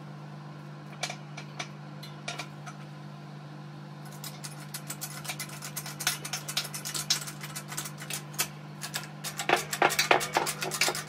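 A few separate knocks as steel and aluminium pressing parts are positioned on a hydraulic shop press. Then, from about four seconds in, a dense run of metallic clicks and taps grows louder toward the end as the ram is brought down onto the sleeve to press out a roller bearing. A steady low hum runs underneath.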